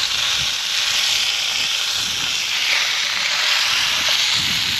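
Food frying in a pan on a portable gas camping stove: a steady sizzle.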